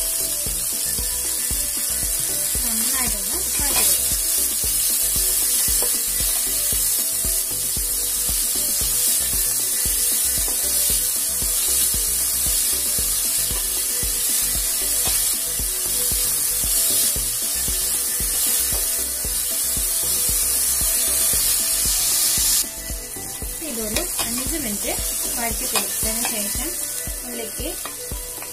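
Sliced onions sizzling as they fry in hot oil in an aluminium pot, stirred with a wooden spatula. The sizzle drops suddenly to a quieter level about 23 seconds in.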